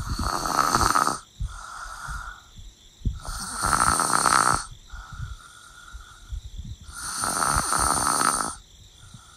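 A person snoring in a slow, even rhythm: three loud snores about three and a half seconds apart, each followed by a quieter breath out.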